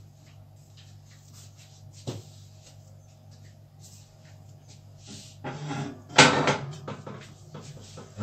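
Soft scraping strokes of a metal palette spatula smoothing whipped cream on a cake, with a click about two seconds in, then a loud knock about six seconds in and another at the end.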